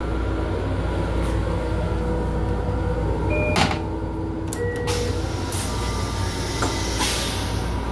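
Steady low rumble of a moving M7 electric railcar, heard from inside its restroom. A few clicks and knocks come as the toilet seat is lifted, then the toilet flushes near the end with a rushing hiss of water.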